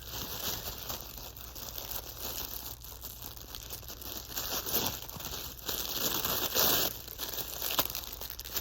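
Packaging crinkling and rustling as items are handled and packed back into a box, louder about five to seven seconds in.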